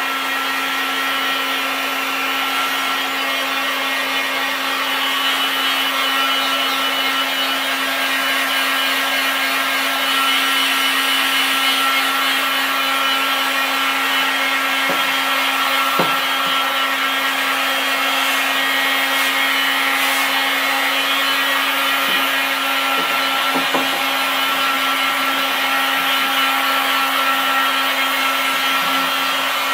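Corded heat gun running steadily, a constant fan hum with a rush of hot air, blowing on carbon fiber vinyl wrap to soften it and activate its glue. A few light handling knocks around the middle.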